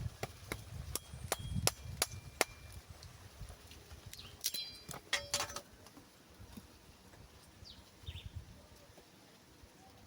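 Sharp wooden snaps and clicks of thin sticks being broken and laid onto a stick-built bird trap. About seven snaps come in quick succession at first, then a denser cluster of cracks about halfway through.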